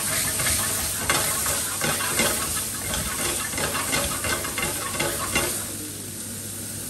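Steaks frying in butter and garlic in a frying pan, sizzling with frequent crackling spits. The crackling eases off about five and a half seconds in, leaving a softer, steady sizzle.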